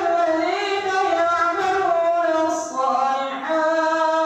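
An imam's solo voice chanting Quran recitation in prayer, long melodic notes that bend and turn. It settles into a steady held note about three and a half seconds in.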